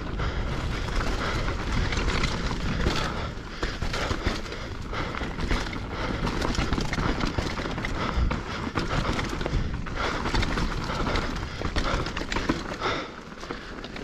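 Hardtail mountain bike riding fast over dry leaves and dirt on singletrack: tyres crunching and chattering over the leaf litter, with a constant rattle and knock of the bike over bumps and a low rumble of wind on the microphone.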